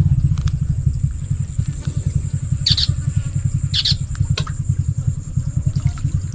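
A continuous low, fluttering rumble, with two short high-pitched chirps about three and four seconds in.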